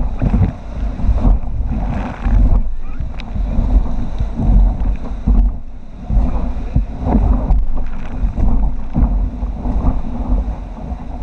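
Whitewater rushing around an inflatable raft as the crew paddles through rapids, with paddle strokes splashing and wind buffeting the microphone in uneven surges.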